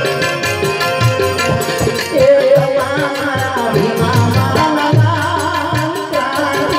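Live Gujarati devotional folk music: a man sings a wavering melody over a harmonium's held notes, with tabla strokes and small hand cymbals keeping a fast, even beat.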